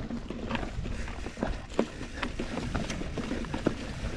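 Titanium mountain bike rolling over rocky, leaf-strewn dirt singletrack: tyre noise over a steady low rumble, with irregular sharp clicks and knocks as the bike rattles over rocks and roots.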